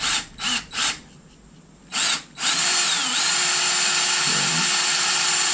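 Power drill boring a small hole into cast iron, run in three short bursts and then one more, then held for a longer steady run; its whine dips briefly under load and falls away near the end as the motor slows.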